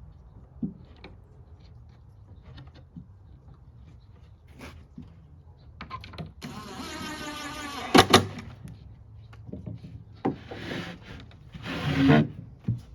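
Workshop handling noises (light knocks and clatter on wood), then a small handheld power tool's electric motor running in two short bursts. Two sharp knocks come at the end of the first burst.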